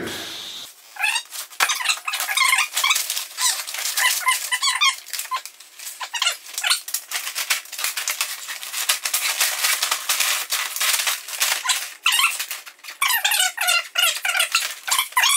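Repeated squeaks and rattling clicks of a folding metal-framed camping cot being collapsed and slid into its nylon carry bag, with a pause near the end before a last run of squeaks.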